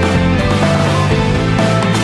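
Background music with guitar over a steady low bass line.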